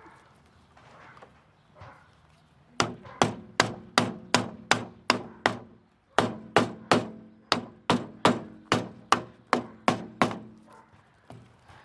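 Repeated sharp knocks on a car door panel, about two to three a second, with a short pause about halfway: the panel being struck to seat its retaining clips into the door.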